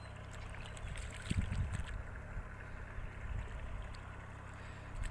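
Small engine of a rice transplanter running steadily, a low hum.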